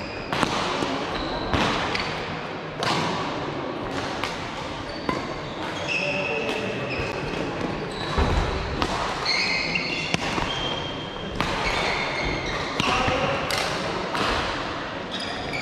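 Indoor racket-sport rally: sharp racket-and-ball strikes every second or two, with many short, high shoe squeaks on the court floor between them.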